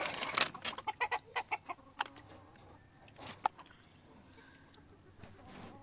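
A hen clucking in a quick run of short calls, over water sloshing as raw meat is washed in a pan at the start.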